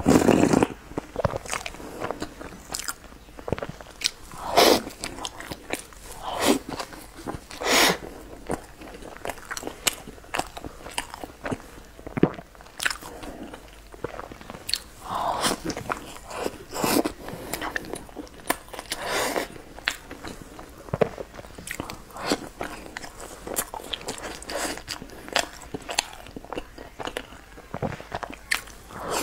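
Close-miked eating sounds: a loud sip from a bowl at the very start, then irregular biting and chewing of a soft chocolate bun dipped in a white drink, with small wet clicks and smacks.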